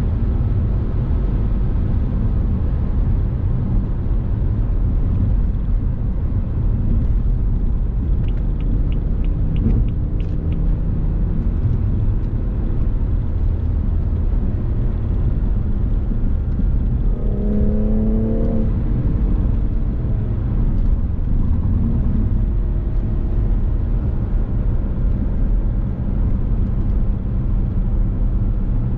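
Steady low rumble of a car being driven, engine and road noise together, with the engine note rising briefly about eighteen seconds in as it speeds up.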